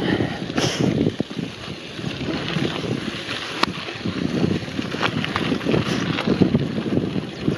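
Mountain bike rolling over a gravel dirt track, with wind buffeting the handlebar-mounted microphone in an uneven low rumble. A few sharp clicks and rattles from the bike, the clearest about halfway through.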